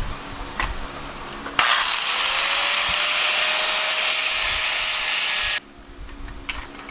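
A handheld power grinding tool cutting into sheet-metal body panel, spinning up with a rising whine about a second and a half in, grinding steadily for about four seconds, then stopping abruptly, as a rust repair patch is trimmed to fit. A few light knocks of handling come before it.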